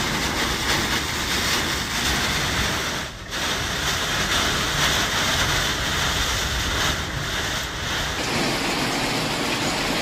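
Storm wind and heavy rain: a loud, steady rushing roar with wind buffeting the microphone. It drops out briefly about three seconds in, and its sound shifts near the end.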